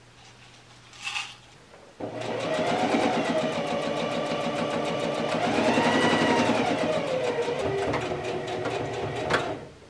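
Electric sewing machine stitching a seam in a bedsheet, its needle running in a fast steady rhythm. It starts about two seconds in, speeds up and slows down twice, and stops near the end.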